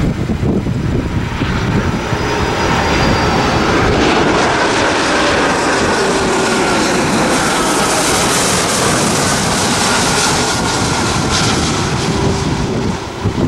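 Airbus A330 twin jet engines on final approach passing low overhead. A faint high whine at first gives way to a broad, loud jet roar that builds about two seconds in and holds as the airliner flies past.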